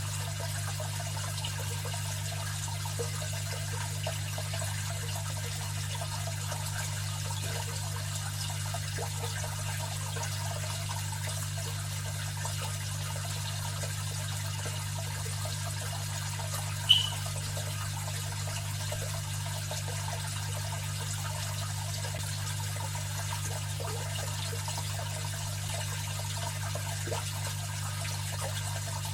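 Aquarium filter running: steady trickling water over a low, constant motor hum. A single short high-pitched ping sounds a little past halfway through.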